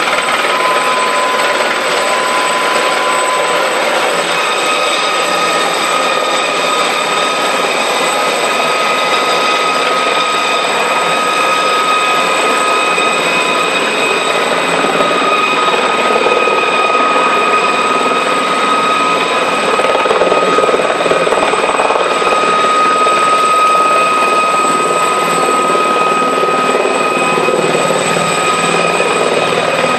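Helicopter hovering low nearby: a loud, steady rush of rotor and engine noise with a steady high whine over it.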